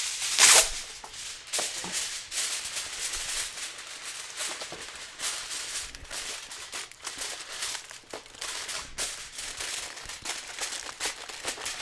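Aluminium foil crinkling and rustling as it is folded and pressed over a baking tray to cover it completely, with a loud burst of crackle about half a second in.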